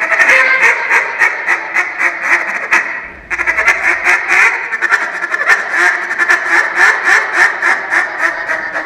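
Duck call blown by hand in fast runs of short quacks, imitating live ducks, with a brief pause about three seconds in before the calling starts again.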